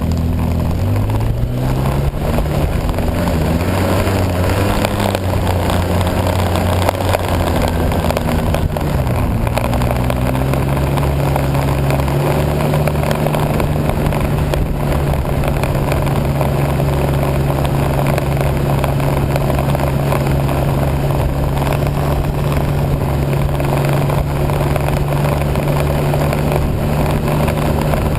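Vehicle engine under way. It revs up about a second in and its pitch wavers for several seconds, then it settles to a steady, higher running pitch from about ten seconds on, with rushing wind noise throughout.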